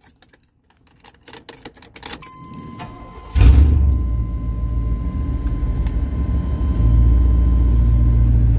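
Keys jangling, then the 1998 Chevy K1500's 5.7 Vortec V8 cranks briefly and starts about three and a half seconds in, running loud and steady, with a steady electronic tone sounding from the truck alongside. This is an engine the owner says idles rough with RPMs that bounce everywhere, and that stalls at idle.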